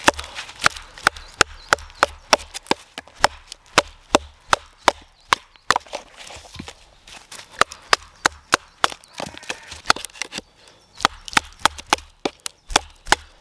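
Hand saw cutting through wood in quick, even strokes, about two to three a second, each stroke giving a sharp crack, with a short pause about ten seconds in.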